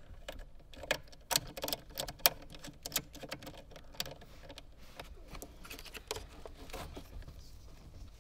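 Socket ratchet on an extension clicking and tapping as it tightens the nut on a circuit breaker's cable stud. The sharp, irregular metal clicks come thick in the first three seconds, then thin out to softer handling noise.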